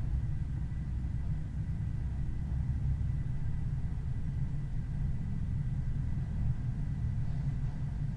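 Car driving at an even, moderate pace: a steady low rumble of engine and road noise, picked up by an onboard camera.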